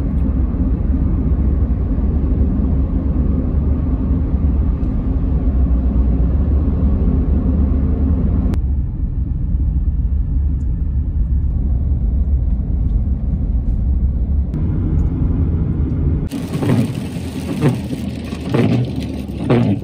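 Steady low road and engine rumble heard inside a moving car's cabin. It changes abruptly a few times between clips. In the last few seconds it gives way to a brighter hiss with scattered sharp taps, as the car drives on a wet highway with rain on the windscreen.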